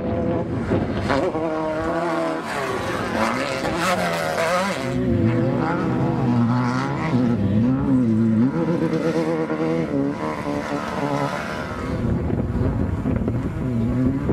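Off-road race buggy engines revving up and down over and over as they run past, loudest around the middle.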